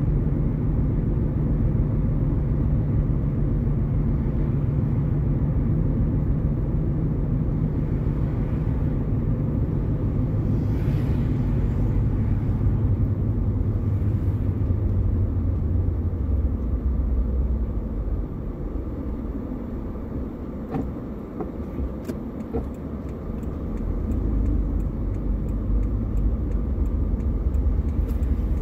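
Inside a moving car: a steady low rumble of engine and tyre road noise. It grows quieter for several seconds about two-thirds through as the car slows in traffic, then rises again as it moves off.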